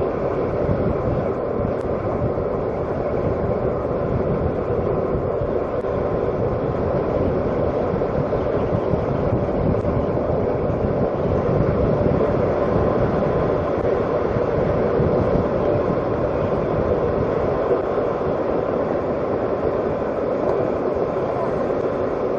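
Steady running noise of a vehicle on the move, an even rumble with a faint steady engine tone and no change in speed.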